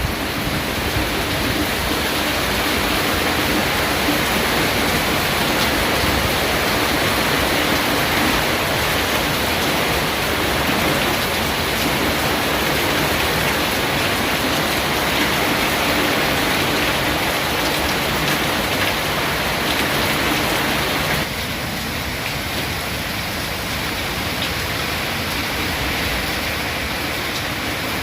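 Heavy rain pouring down steadily, a dense hiss; it drops a little in level about three-quarters of the way through.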